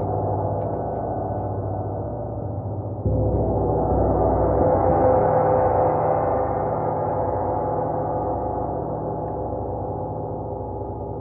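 Gong ringing, struck again about three seconds in; the ring swells and brightens, then slowly fades away.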